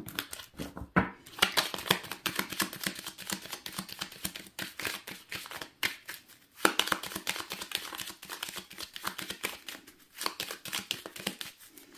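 A deck of Lenormand cards being shuffled by hand: a dense run of quick, papery clicks and flicks, broken by a few short pauses.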